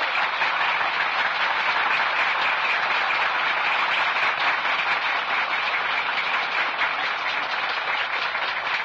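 A large audience applauding steadily: many hands clapping together in a dense, even patter.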